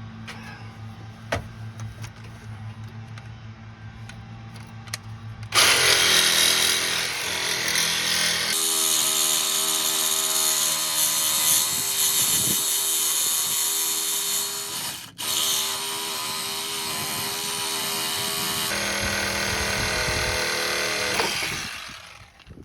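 A power tool running hard for about sixteen seconds, starting about five seconds in, with a brief break about fifteen seconds in. It is being used to get off a stripped, stuck sway bar link bolt. A low steady hum comes before it.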